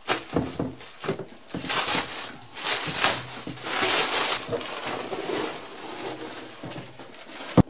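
Clear plastic stretch wrap being slit with a utility knife and torn and crinkled off an aluminium pannier case, in several rustling bursts. A single sharp knock near the end.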